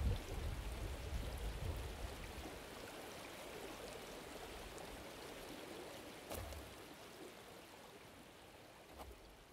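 Running water like a stream, a steady rushing hiss with a low rumble at first that fades over the first two seconds. The water slowly grows quieter, with a couple of single knocks in the second half.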